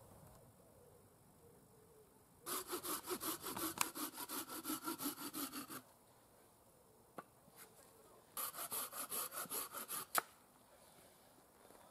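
Hand saw cutting firewood in two bouts of quick, even strokes, about six a second, with a sharp crack as the second bout ends.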